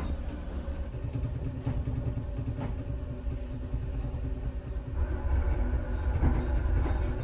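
Steady low drone of a passenger ferry under way, heard inside a small onboard washroom, with a mechanical hum over it. It grows a little louder about five seconds in.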